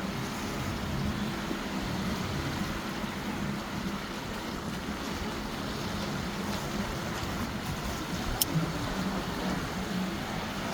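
Surf washing on the beach under the steady drone of a motorboat engine offshore, with one sharp click about eight seconds in.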